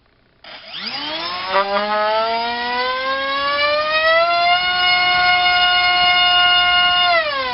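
RCinpower QAV2206 1900KV brushless drone motor spinning a TGS 6x3 propeller on a 4-cell battery under a thrust test. It starts with a sudden whine about half a second in that rises in pitch as the throttle is opened over about four seconds. It holds steady at full throttle, pulling about a kilogram of thrust, then falls in pitch as it winds down near the end.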